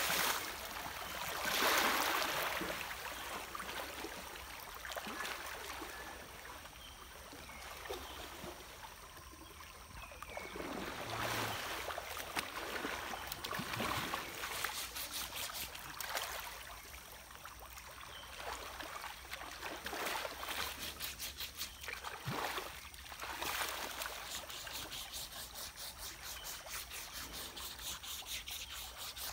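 River water splashing and sloshing as a man scrubs an elephant lying in the shallows, in irregular bursts over a steady flow of water; the loudest splash comes about two seconds in, and quick, rhythmic splashing strokes come near the end.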